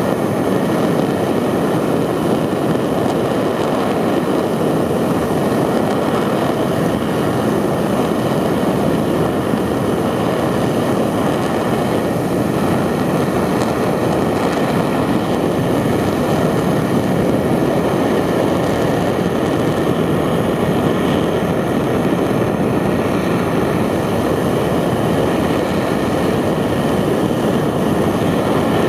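Steady roar of a 75-tonne-class kerosene and liquid-oxygen rocket engine in a long static-fire test, an even rushing rumble with no breaks.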